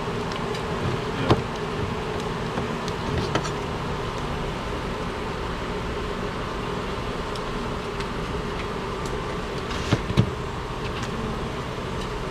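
Dense steady buzzing of a large, disturbed honey bee colony exposed in a wall. A few sharp knocks sound over it, one about a second in and two near ten seconds in.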